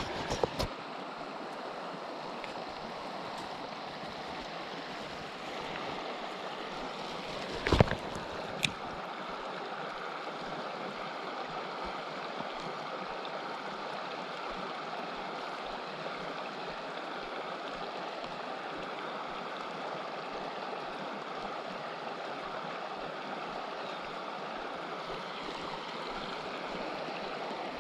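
Creek water rushing steadily over rocks. About eight seconds in there is one sharp knock, followed shortly by a smaller click.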